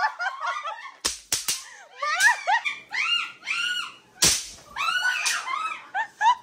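Sharp cracks of throw-down bang snaps (pop-pops) going off, three in quick succession about a second in and another near four seconds. Between the cracks come excited squeals and laughter.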